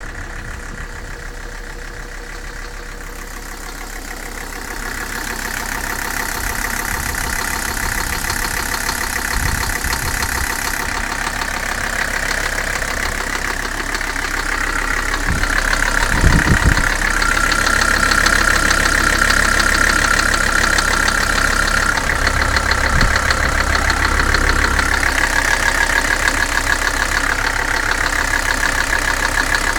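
Mercedes 300SD's OM617 five-cylinder turbo diesel running with a loud, rapid knock, which the owner believes comes from worn bottom-end bearings. The engine grows louder over the first half and then holds steady.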